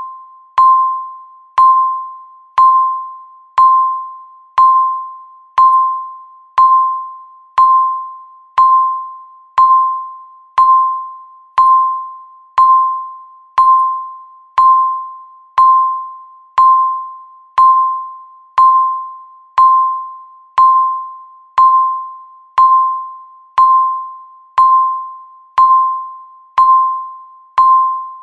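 Countdown timer beep: a single-pitched electronic ping struck once a second, each sharp at the start and fading quickly, marking each second left.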